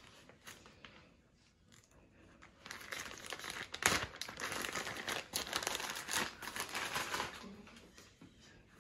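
Thin plastic bag crinkling and rustling as it is handled and pulled open, starting a couple of seconds in, with one sharp loud crackle about four seconds in, then dying down near the end.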